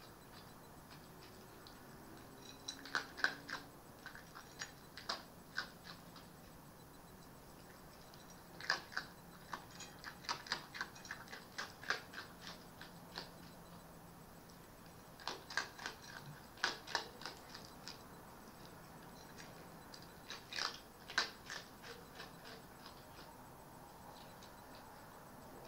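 Red fox eating from a bowl: sharp crunching clicks that come in short clusters every few seconds, with pauses between.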